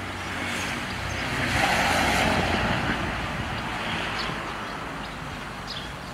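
A road vehicle passing by: its noise swells to a peak about two seconds in and then fades away, over a steady low hum.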